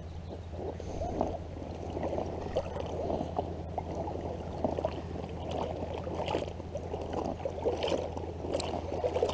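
Water sloshing and gurgling against a float tube moving across a lake, with small irregular splashes.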